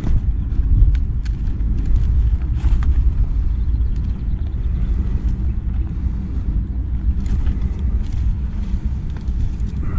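Steady low rumble of wind buffeting the microphone, with a few faint clicks and rustles from a backpack being handled.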